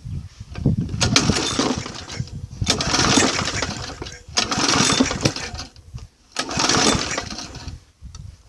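3.5 hp Briggs & Stratton lawn mower engine being pull-started on spray oil instead of gasoline: four rough bursts of about a second each, with short pauses between.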